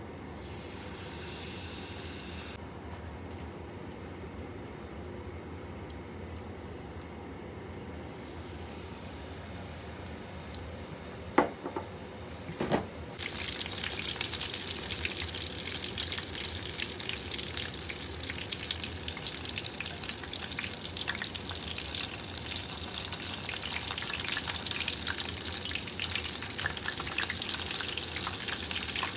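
Battered tofu pieces deep-frying in hot oil: a dense crackling sizzle that grows much louder about halfway through, just after two sharp knocks.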